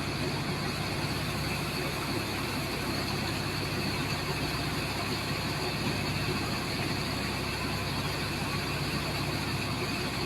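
A high-pressure water jet hissing steadily as it blasts into compacted sand, over the constant drone of an engine-driven pump.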